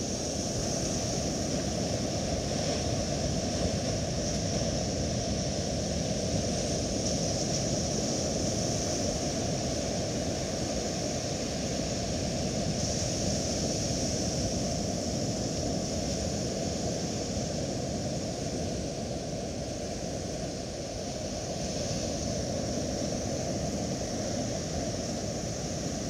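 Steady wash of surf breaking on a shingle beach, a continuous low noise with a constant high hiss over it.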